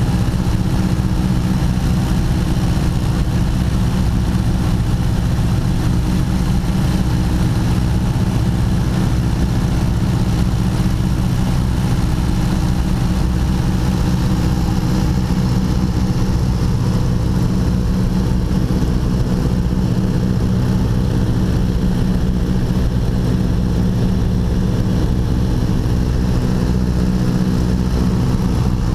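A 1929 Ford Tri-Motor's three radial engines running steadily in flight, heard from inside the cockpit as an even drone of low engine tones.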